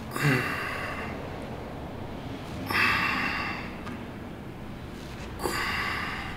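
A weightlifter's forceful breaths, one hard exhale with each rep, three times about two and a half seconds apart.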